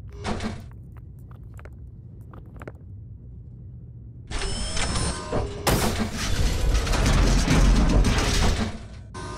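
Sound effects of robotic machinery: a low hum with scattered small clicks, then, about four seconds in, a loud mechanical whirring and grinding with whining tones that cuts off near the end.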